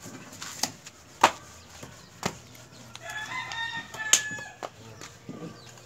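A rooster crows once, starting about three seconds in and lasting about a second and a half. Several sharp knocks of a bolo blade striking a wooden log come before and during the crow, the loudest one a little over a second in.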